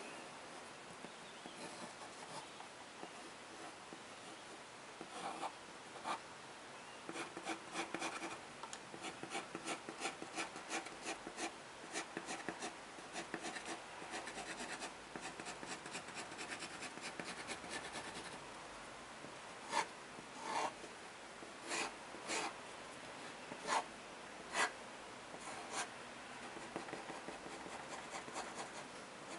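Ink pen scratching across drawing paper: faint at first, then a dense run of quick hatching strokes. In the last third come about seven separate, louder strokes.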